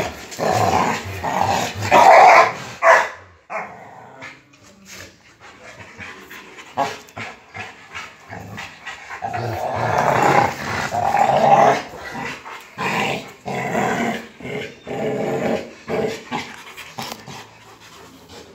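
Rottweilers growling as they fight over a motorcycle tyre, in two loud spells: one at the start and a longer one from about nine seconds in, with scattered knocks in the quieter stretch between.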